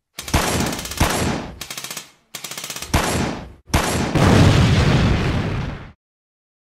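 Gunfire sound effects: several bursts of rapid machine-gun fire laid one after another, with brief dead gaps between clips, stopping abruptly about six seconds in.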